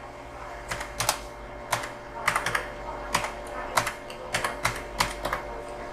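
Typing on a computer keyboard: a run of irregular keystrokes that starts about a second in and stops shortly before the end.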